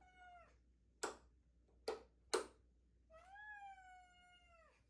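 A house cat meowing: a short meow at the start, then one long drawn-out meow about three seconds in that falls off at the end. Three sharp clicks or taps come between the two meows.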